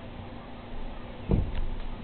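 A single dull thump a little over a second in, followed by two faint ticks.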